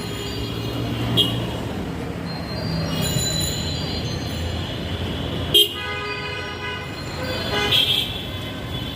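Vehicle horns honking several times in road traffic, one held for about two seconds, over the steady rumble of an engine and road noise. A sharp knock just before the long honk is the loudest sound.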